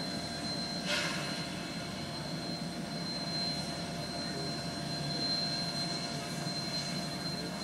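Steam locomotive running slowly toward the listener, a steady low rumble with a hiss over it and a brief louder hiss about a second in.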